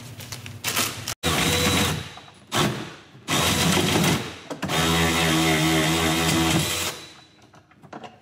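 Cordless power ratchet running in four short bursts, driving in a bolt. The last and longest run lasts about two seconds at a steady pitch.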